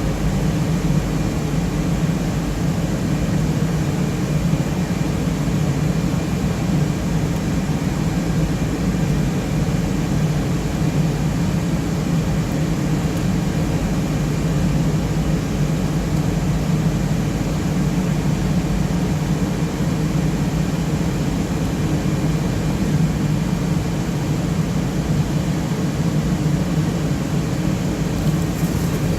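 Server cooling fans running with a steady, unchanging whir, deepest in a low hum, with a few faint steady whine tones above it.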